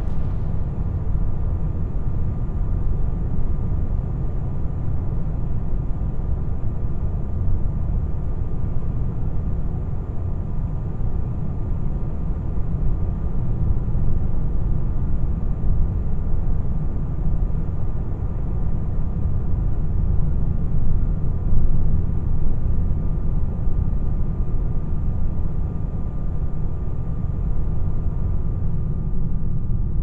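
A steady low rumble with a faint, constant high hum over it.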